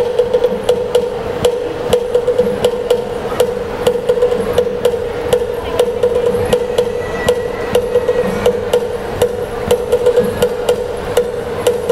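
Traditional percussion music for the Binanog dance: a steady ringing tone, beaten again and again, under sharp clicking strikes at about two to three a second in an even rhythm.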